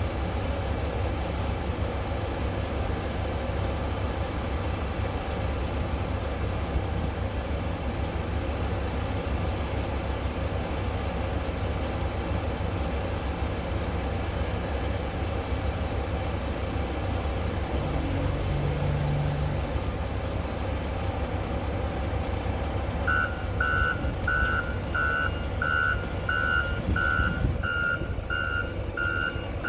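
Heavy equipment's diesel engine running steadily. About three-quarters of the way through, a backup alarm starts beeping at roughly one and a half beeps a second: the machine is reversing.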